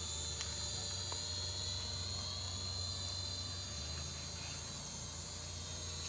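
Small toy camera quadcopter (E99/K3) hovering, its motors and propellers giving a steady high whine over a low hum.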